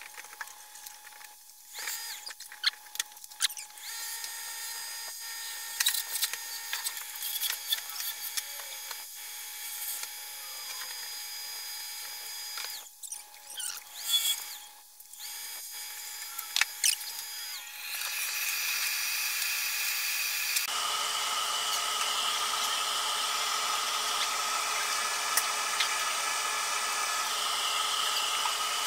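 Laguna wood lathe spinning a curly maple blank, with a turning tool cutting it in uneven passes of scraping and ticks over the steady hum of the lathe. Near the end the sound changes to a brighter hiss and a louder, higher set of steady tones.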